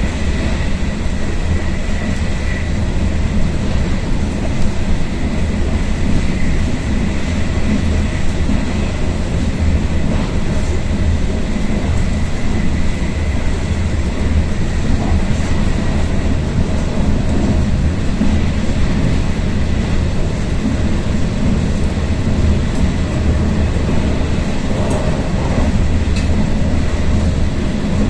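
Passenger train running at speed, heard from inside the carriage: a steady rumble and rush of wheels and air, with a faint high whine through the first half or so.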